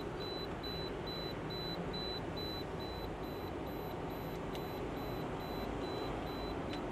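Handheld EM radiation detector sounding its high-pitched beeping alarm, about four beeps a second, over the steady hum of the running car. Its display reads around 3000. A click comes about four and a half seconds in, and the beeping stops with a click near the end.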